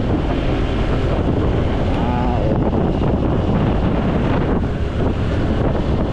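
Wind buffeting the microphone on a moving motorcycle, a steady rushing noise over the engine and surrounding traffic.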